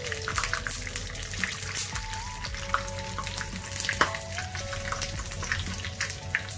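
Green chillies frying in a little hot coconut oil in a small kadai, sizzling with irregular sharp crackles and spatters, over soft background music.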